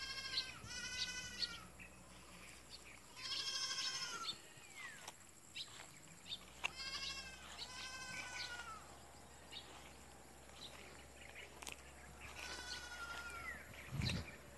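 Goats bleating: about six high bleats, several coming in pairs, with faint rustling between them and a dull thump near the end.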